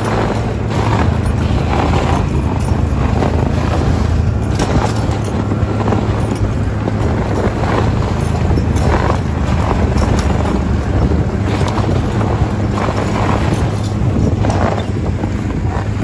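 Snowmobile engine running at a steady speed while travelling over snow, with wind noise on the microphone.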